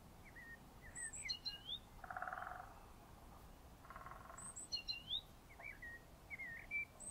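Songbirds chirping: a short phrase of high, quickly sliding notes repeated about every three seconds, with a lower buzzy trill twice in between.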